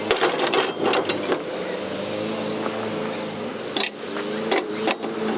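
Metal knocks and clatters as a chainsaw mill attachment is handled and fitted onto the chainsaw bar, a flurry in the first second and more around four to five seconds in, over a steady engine hum.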